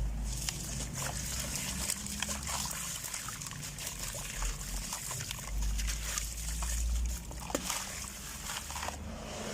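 Dry grey sand-cement crumbling and crunching, with many small crackles and grains trickling.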